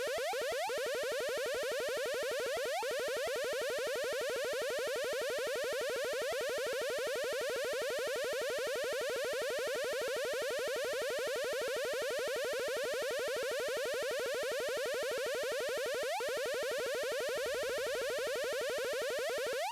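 Harsh synthesized electronic buzz: a very rapid pulsing tone held at a steady pitch, with a few quick rising sweeps, played as an irritating noise.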